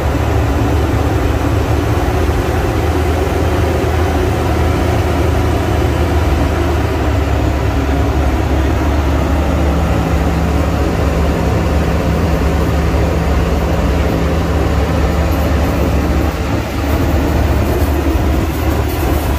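Steam train running along the track: a loud, steady rumble. A steady hum joins about halfway through and drops out near the end.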